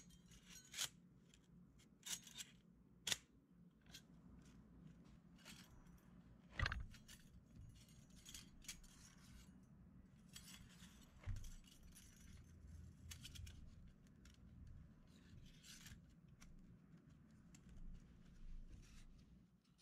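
Thin sheet-metal rose petals clinking and scraping against each other and a metal rod as they are handled and bent by hand. There are sharp clicks scattered throughout, the loudest about six and a half seconds in, between quiet rubbing.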